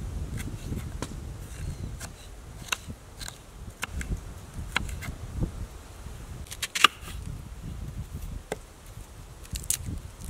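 Kitchen knife chopping a red bell pepper on a wooden cutting board: irregular sharp taps of the blade striking the board, one louder knock about two-thirds of the way through, over a low steady rumble.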